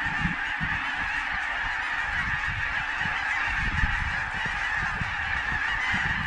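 A huge mixed flock of Canada geese and snow geese calling overhead, countless honks blending into one dense, unbroken din.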